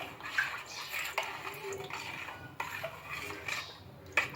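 A spoon stirring a large batch of lemon juice in a container, clinking against the sides about once a second, mixing in food colouring.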